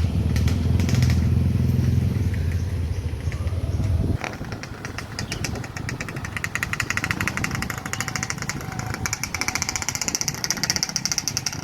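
Motorcycle engine running steadily, cutting off suddenly about four seconds in. After that comes a quieter, fast, even high-pitched rattling buzz.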